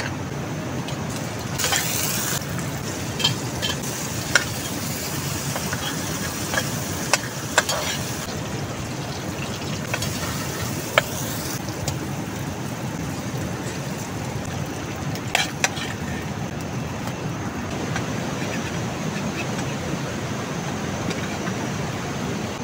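Chopped onions and tomato frying and sizzling in oil in a steel pan on a portable butane gas stove, a spatula stirring and scraping through them with sharp knocks against the pan every few seconds. A steady rushing noise runs underneath.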